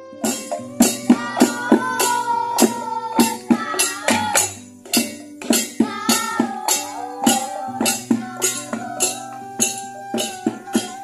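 Music with sharp jingling percussion strokes several times a second over a steady bass line and a held melody.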